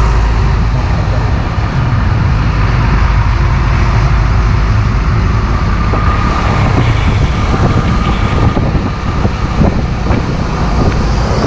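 Heavy trucks and traffic on a highway, heard from close by on a moving motorcycle: a steady, loud low rumble of engines and tyres.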